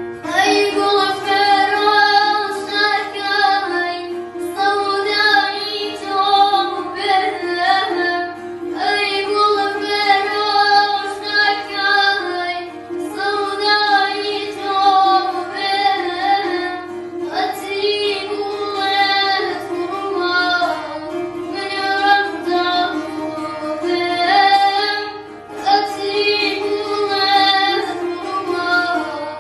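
A boy singing in wavering, ornamented phrases of a few seconds each, accompanied by a plucked long-necked lute.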